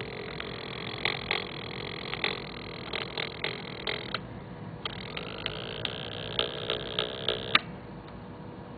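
Circuit-bent Texas Instruments Speak & Read's speech chip glitching: irregular electronic clicks and buzzy pops, with a rising tone about five seconds in, cutting off suddenly after a loud click about seven and a half seconds in.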